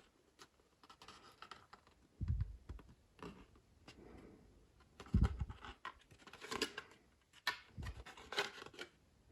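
Hands handling packaging and parts: intermittent scratching and rustling with a few soft thumps and light clicks.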